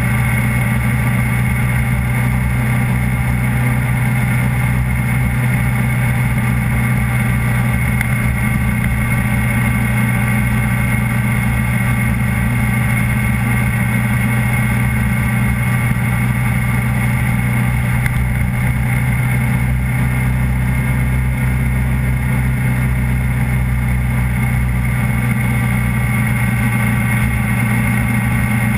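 Onboard sound of a vehicle's engine running at a steady cruising speed along an open road, with a constant, unchanging engine note.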